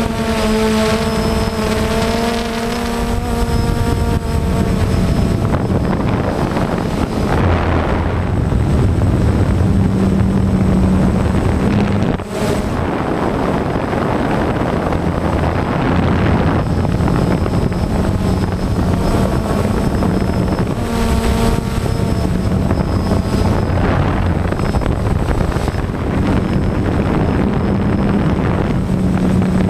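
DJI Phantom quadcopter's motors and propellers buzzing, heard close up from the camera slung beneath it. The whine shifts in pitch as the drone manoeuvres, over a steady rush of air.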